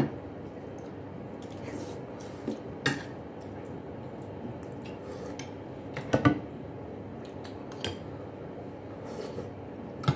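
Metal spoon clinking and scraping against a ceramic bowl and plate while eating, a handful of sharp clinks with the loudest pair about six seconds in.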